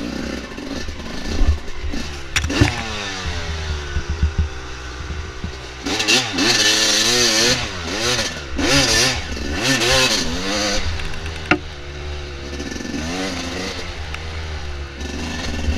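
Dirt bike engine on a trail ride, revving up and down repeatedly as the throttle is worked, with a few sharp knocks and clatter from the bike over rough ground.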